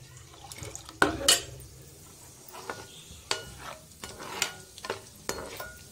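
Cashews frying in ghee in a pan on a low flame, a light sizzle under irregular strokes of a utensil stirring, scraping and knocking against the pan; the loudest scrape comes about a second in.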